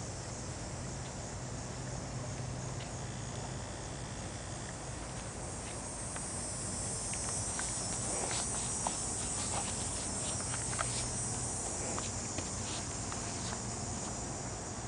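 Steady high-pitched buzz of insects, swelling from about six seconds in, with a scatter of light clicks and rustles from movement on the grass through the middle.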